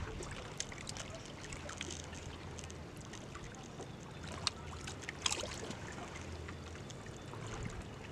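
Water trickling and lapping, with a low steady hum through most of it and scattered small clicks.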